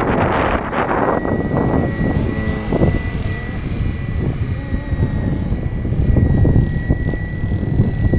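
Radio-controlled 470-size BO 105 scale helicopter running, its rotors and motor giving a steady high whine that sets in about a second in. Wind buffets the microphone throughout.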